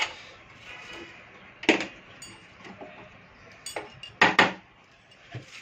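Handling knocks and clinks: a handful of sharp clicks as the inverter's circuit board and metal parts are knocked about, with two loud knocks close together about four seconds in.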